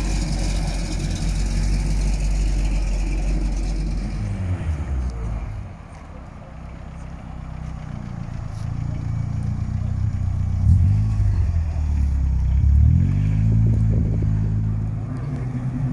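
Car engines rumbling at low revs: one fades out with a falling pitch about five seconds in, then another grows louder, its revs rising and falling a couple of times near the end.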